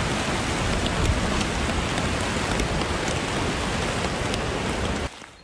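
Rain falling hard on a camping tarp in wind: a dense, steady rush with single drops ticking through it and a low rumble underneath. It stops abruptly near the end.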